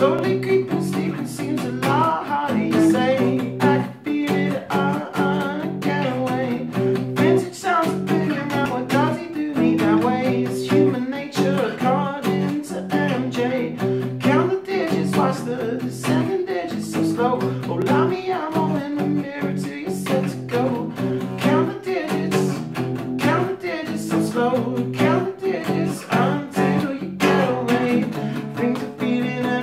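Steel-string acoustic guitar strummed in a steady rhythm with picked lead lines, a solo at first, and a man's voice singing over it later on.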